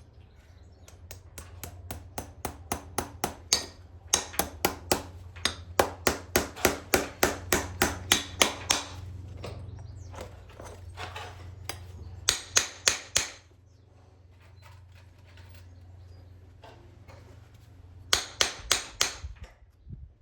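Farrier's hammer striking steel in quick runs of about three blows a second, with a metallic ring, stopping and starting several times. A steady low hum sits underneath.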